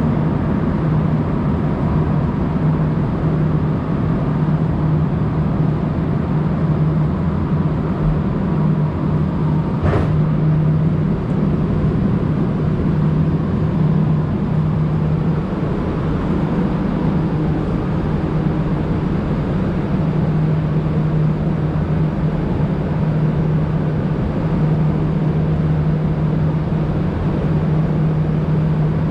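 Steady low hum and rumble inside a Montreal Metro Azur (MPM-10) subway car, with one short sharp click about ten seconds in.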